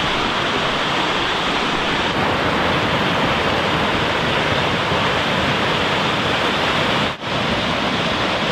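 Fast-flowing river water rushing close by, a loud, steady rush that briefly drops out about seven seconds in.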